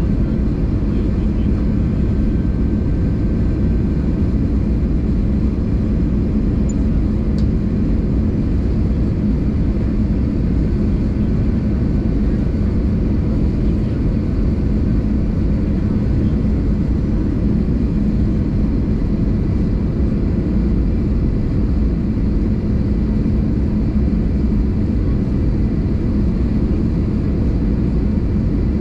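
Airbus A320 cabin noise on approach: the even, low roar of the engines and rushing air heard from inside the cabin, with a steady hum beneath it.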